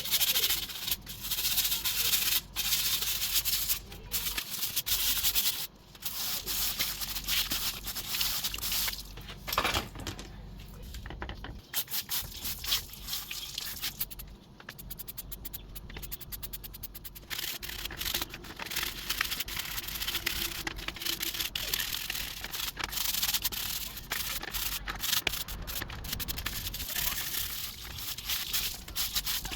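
Uneven rubbing and scraping strokes against a hard part, with many sharp clicks, easing off for a few seconds around the middle.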